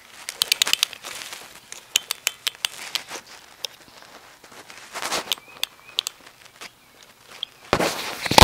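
Handling noise of a pocket iPod nano recording: irregular crackles and clicks as the device is rubbed and moved about with its lens covered. A louder rush of rubbing noise comes near the end.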